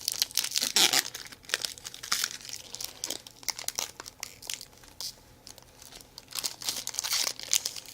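Plastic wrapper of a trading-card pack, holding a commemorative patch card, being torn open and crinkled by hand: irregular crackling, sparser in the middle and busier again near the end.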